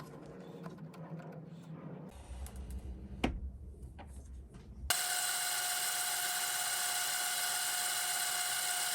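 Quiet handling of parts with a sharp click, then about five seconds in a mini lathe's motor starts and runs steadily.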